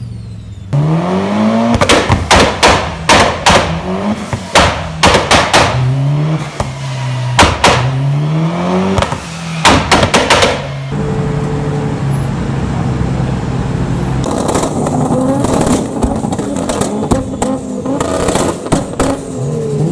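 Tuned car engine revving against a two-step launch limiter, its exhaust firing strings of loud pops and bangs between short rising revs. In the middle the revs are held steady at the limiter, then the crackling starts again.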